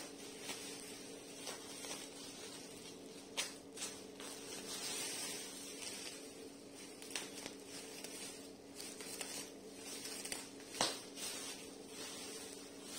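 Black plastic wrapping crinkling and rustling as a parcel is handled, with scattered sharp clicks and taps, the loudest late on. A faint steady hum runs underneath.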